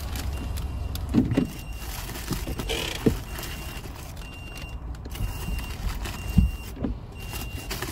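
A car's warning chime beeping about once a second, the same short high tone each time, over the low hum of the car. Paper-bag rustling and a few knocks inside the cabin, the loudest about a second in and again past six seconds.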